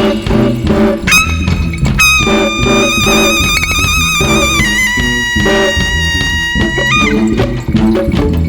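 Band music with drums and bass, over which a wind instrument holds long, wavering notes, stepping down to a lower note about halfway through.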